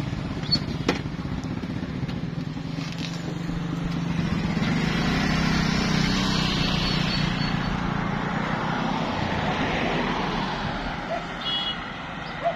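Road traffic: a motor vehicle approaches and passes, its engine and tyre noise swelling through the middle and easing off near the end. A couple of sharp clicks come near the start.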